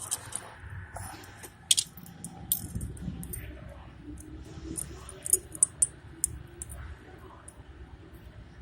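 Small metal parts of a motorcycle clutch, the springs and their bolts, being handled and set in place, giving irregular light metallic clicks and taps with a few sharper ticks.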